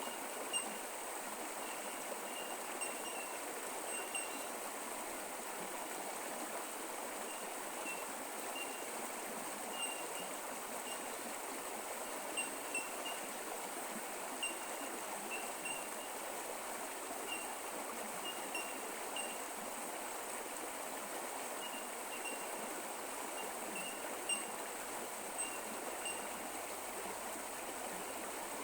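Australian bush creek flowing steadily, with short high plinks of trickling water scattered irregularly throughout.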